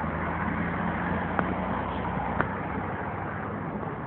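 Road traffic: a steady rumble with the low hum of an engine running. Two short sharp clicks come about a second and a half in and a second later.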